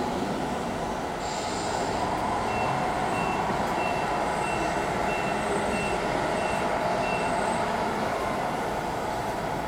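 Backup beeper on a radio-controlled model forklift, a run of short high beeps at about two a second lasting several seconds, over a steady background din. A brief hiss sounds about a second in.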